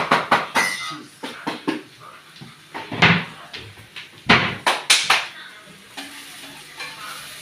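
Kitchen clatter of pans and tins being handled and set down on the counter and stove: a quick run of knocks at first, a louder clunk about three seconds in, and another few knocks around four to five seconds in.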